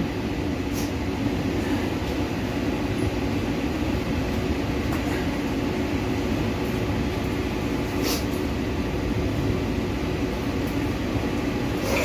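Heavy rain and strong wind making a steady rushing noise, with a faint steady hum underneath and a couple of brief faint clicks.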